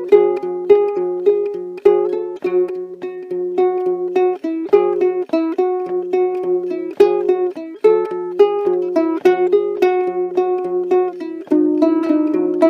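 Ukulele music: a quick run of plucked notes over a repeating lower note, with no singing.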